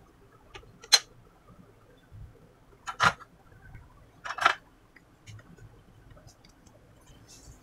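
A printed circuit board with a large capacitor being fitted is handled and turned over on a workbench, giving three short, sharp clicks and rattles spread over a few seconds, the first the loudest, with faint ticks between.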